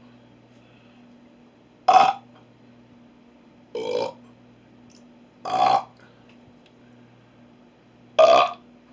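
A man burping four times: short belches a second or two apart. The first and last are the loudest.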